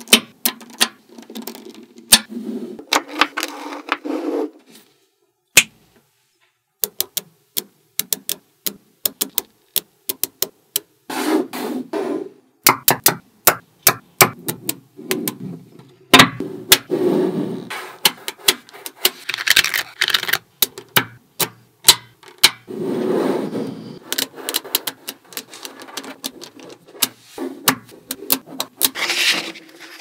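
Small metal magnetic balls clicking as they snap together, many sharp clicks in irregular runs, with stretches of rattling as rows of balls are pressed into place. There is a pause of a couple of seconds about five seconds in.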